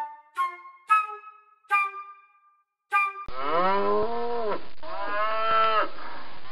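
A few short musical notes, then a cow mooing twice from about three seconds in: long, low calls that fall in pitch, with a third moo starting near the end.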